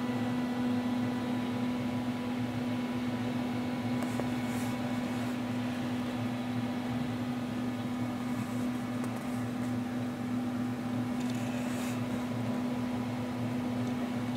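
Steady electrical hum with one strong low tone, unchanged throughout, and faint brief rustles about four and a half seconds and twelve seconds in.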